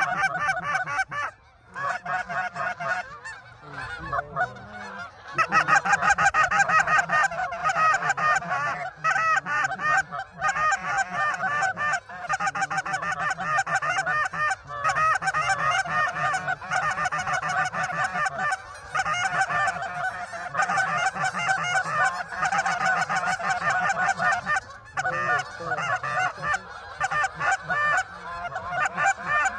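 A large flock of geese honking, a dense unbroken chorus of overlapping calls that gets louder about five seconds in.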